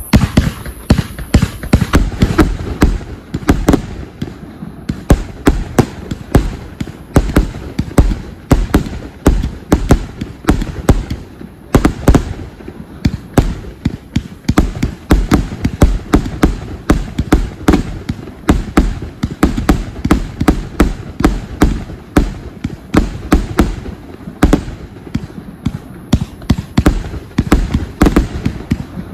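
Compound fireworks cake of 30 mm shots firing shot after shot: a continuous run of sharp bangs and thumps, several a second, keeping up throughout.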